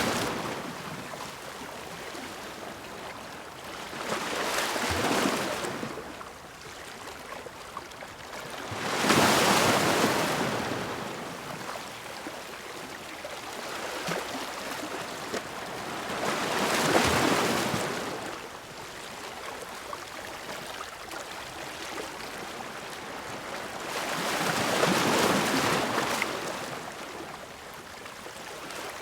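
Ocean waves breaking on a shore, with a steady wash of surf between them. Four waves swell and fade, about seven seconds apart, and the second one is the loudest.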